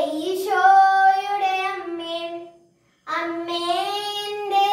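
A boy singing a Malayalam Marian hymn solo and unaccompanied: a long held phrase, a short breath pause about two and a half seconds in, then the next phrase.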